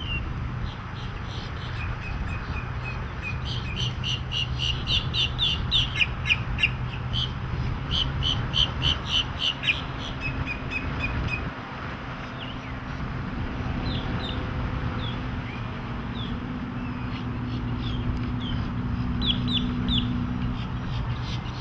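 Birds chirping in quick runs of short, high notes, over a steady low engine drone.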